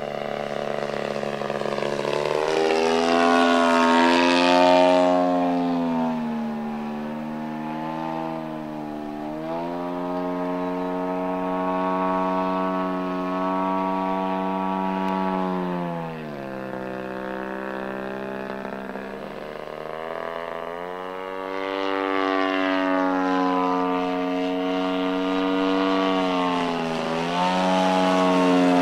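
Engine and propeller of a 40% scale Aeroworks Carbon Cub radio-control model plane in flight, its pitch rising and falling with the throttle and the passes. It is loudest on the passes shortly after the start and near the end, and the pitch drops sharply about halfway through before climbing again.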